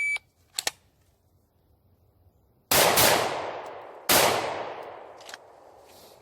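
A short electronic beep at the start, then handgun shots: two in quick succession about three seconds in and a third just over a second later. Each shot trails off in a long echoing decay.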